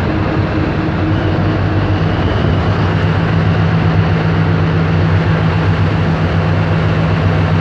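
Tugboat's diesel engines running steadily under load while towing on the line, a low drone with steady hum tones over a rush of wind and water. The engine note shifts about two seconds in.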